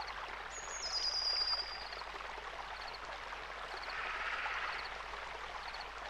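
Gentle rushing water like a small stream. A high whistle slides down in steps about half a second in, and faint short high chirps recur every second or so.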